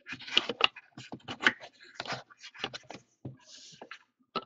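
Trading cards and their box being handled by hand: an irregular run of short clicks, taps and scrapes of cardboard and plastic as the box is opened and the cards are slid out.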